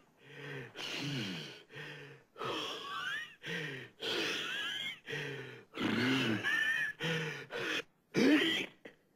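A cartoon wolf panting and gasping with its tongue hanging out: a run of about ten voiced, wheezy breaths, roughly one every half to three-quarters of a second, with one longer drawn-out gasp about halfway through.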